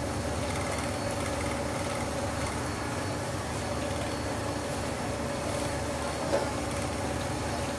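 Steady droning hum of kitchen machinery, with one short knock about six seconds in.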